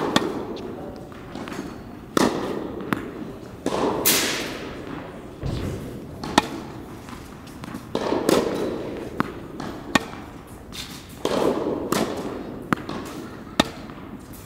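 Tennis rally: racket strikes and ball bounces, sharp pops every second or two, some ringing on in the large indoor hall.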